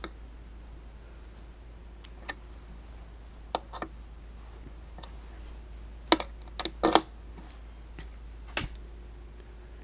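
A quarter-inch jack plug being pushed and worked into the input socket of a homemade ammo-can boombox: scattered sharp clicks and pops, loudest in a quick cluster about six to seven seconds in, over a steady low hum from the amplified speakers.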